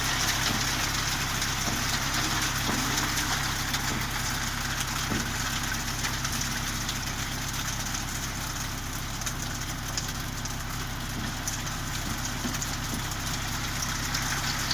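An engine idling steadily under a constant hiss.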